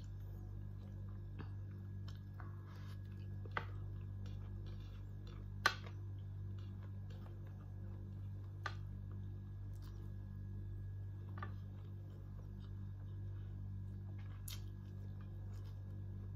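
Small clicks and taps of eating a shrimp dinner by hand, five of them sharp and the rest faint, over a steady low hum.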